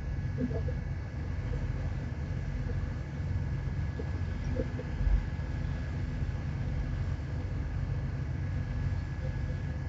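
Steady low drone of a ship's engine heard on board, with a faint constant whine above it and a dull thump about five seconds in.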